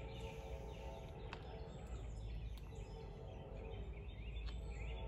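Quiet outdoor background with a bird chirping repeatedly in short rising notes in the second half, and a faint click about a second in.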